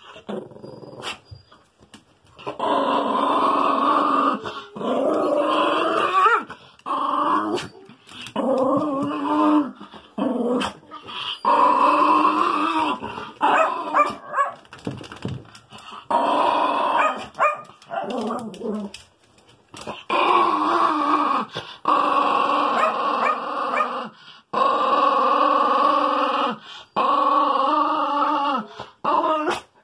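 Small white dog howling: about a dozen drawn-out, wavering calls of one to two seconds each, with short breaks between them.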